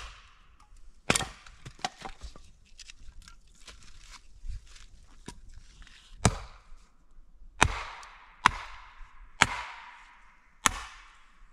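Wood being chopped with an axe: about eleven sharp blade strikes at an irregular pace, the louder later ones each trailing off in a short crackle as the wood splits. This fits splitting kindling splints for a campfire.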